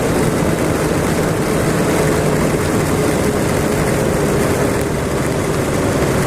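1999 Yamaha YZF600R Thundercat's inline-four engine running at a steady cruise, under a loud rush of wind on the microphone.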